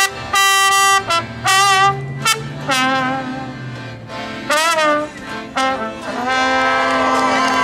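A brass instrument, trombone or trumpet, playing a string of short, wavering notes, then a longer held passage from about six seconds in.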